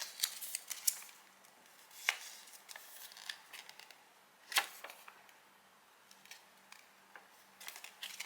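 Paper leaflets and cardboard SSD packaging being handled: scattered rustles and sharp taps, the loudest about two and four and a half seconds in, with quieter rustling in between.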